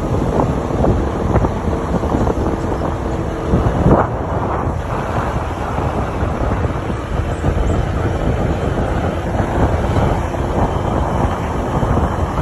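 Wind buffeting the microphone of a camera carried on a moving vehicle, over the vehicle's steady running and road noise, with a brief louder gust about four seconds in.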